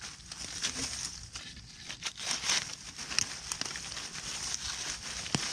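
Dry leaf litter rustling and crackling as it is handled and shifted, in irregular crinkles.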